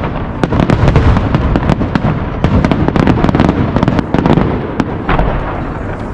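Fireworks display: many aerial shells bursting in quick succession, deep booms mixed with rapid sharp crackling reports.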